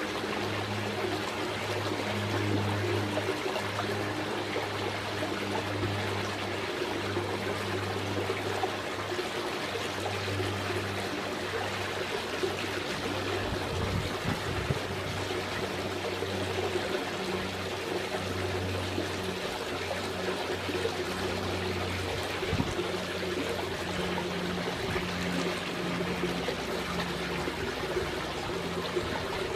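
Water trickling and running steadily from the pool, with a low steady hum underneath.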